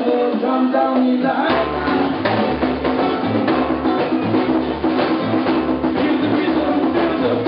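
Live band playing: ukulele strummed over bass guitar, drum kit and congas, with a steady beat. The bass comes in about a second and a half in.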